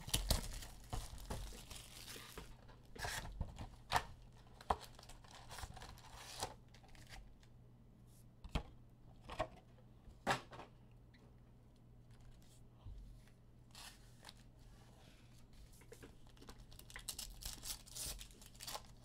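Foil wrappers of Donruss Elite football card packs crinkling and rustling in the hands, with scattered sharp crackles, and a pack being torn open near the end.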